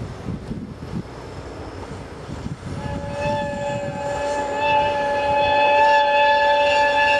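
DD51 diesel locomotive sounding its horn: a long, steady blast of two tones that starts about three seconds in and is held to the end.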